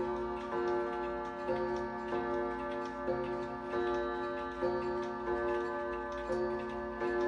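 Gustav Becker box clock striking bim-bam on two coiled gongs. A higher and a lower note are struck as a pair about half a second apart, with a new pair every second and a half or so, each note ringing on. The clock's ticking runs underneath.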